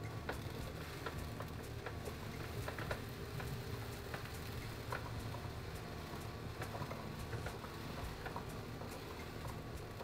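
Cat litter granules scratching, shifting and pattering inside a self-cleaning litter box, with scattered light irregular clicks over a steady low hum.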